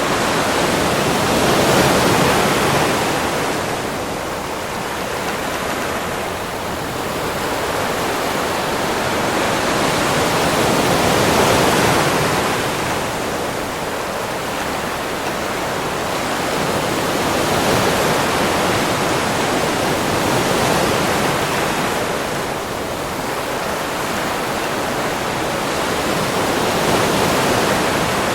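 Sea waves breaking and washing on a beach: a steady rushing hiss that swells and eases every several seconds as each wave comes in.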